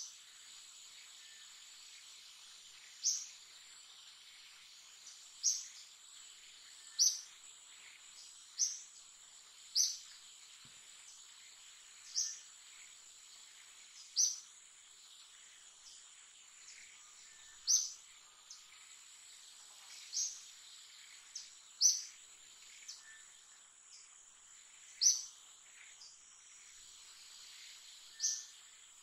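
Forest ambience: a steady, high-pitched insect drone, with a short, high chirp, likely from a bird, repeated about a dozen times at uneven intervals of one to three seconds.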